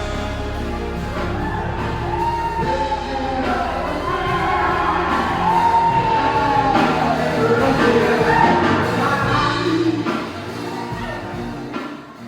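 Background music with a singing voice, its long melody lines gliding up and down.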